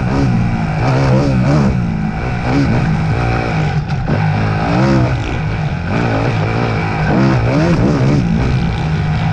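Off-road racing motorcycle engine revving up and down over and over, its pitch rising and falling about once a second as the throttle opens and closes.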